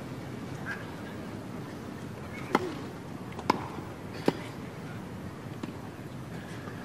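Tennis ball being played: three sharp pops of ball on racket and court, roughly a second apart, over a steady background hubbub with faint distant voices.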